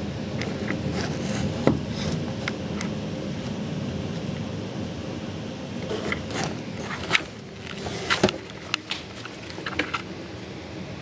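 Rain ambience with a low rumble that fades over the first half, then scattered sharp ticks and taps, clustered in the second half, like drops striking hard surfaces.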